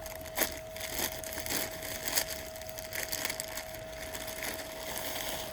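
A shipping bag being opened and handled, with irregular crinkling and crackling as clothes are pulled out.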